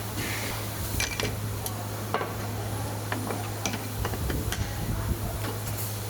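Irregular light clinks and knocks, a few a second, over a steady low hum.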